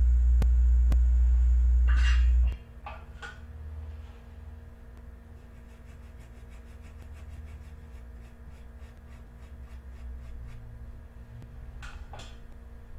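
A loud, steady low electrical hum that cuts off suddenly about two and a half seconds in, followed by faint small ticks and rubbing for the rest of the time.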